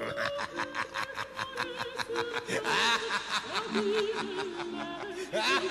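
A woman laughing heartily in quick, repeated pulses, with background music underneath.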